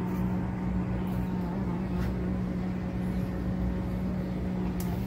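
Steady machine hum: a motor or pump running with a constant low drone that does not change in pitch or level.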